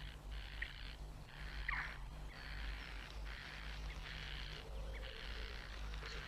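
Birds calling: a run of harsh, hissing notes, each about half a second to a second long with short gaps between, and a brief falling whistle. A steady low hum underlies them.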